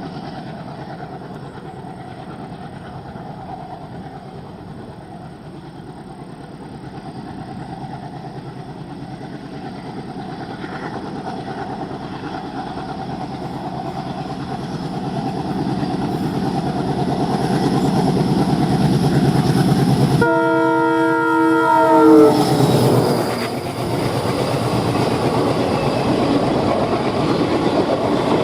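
WDM-3A diesel locomotive's ALCO engine chugging, growing steadily louder as it approaches under acceleration. About two-thirds of the way in, its multi-tone horn sounds for about two seconds, the pitch dropping as the locomotive passes. The train then keeps rolling past with a steady rumble.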